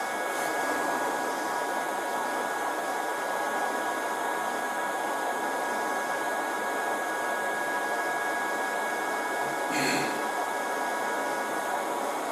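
Steady fan-like rushing noise with a few faint, high, steady tones running through it. A brief rustle comes about ten seconds in.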